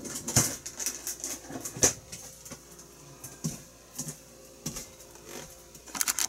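Scattered light clicks and knocks, irregularly spaced, over a faint steady hum.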